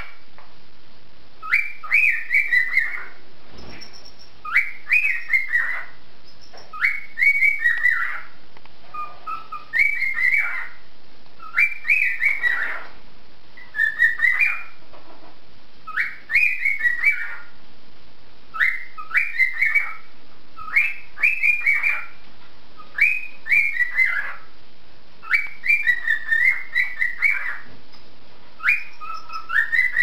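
Cockatiel whistling a short phrase of quick up-and-down notes, repeated over and over about every two seconds.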